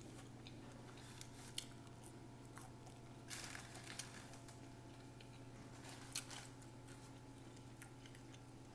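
Faint mouth sounds of chewing a McDonald's chicken nugget, with a few soft clicks and a brief paper rustle from the fry basket's liner a little over three seconds in, over a steady low hum.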